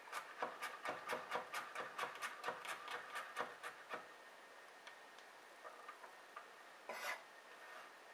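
A chef's knife slicing a garlic clove on a wooden cutting board. For about four seconds the blade taps the board in quick, even strokes, about five a second. Then come a few scattered light knocks and one brief scraping noise near the end.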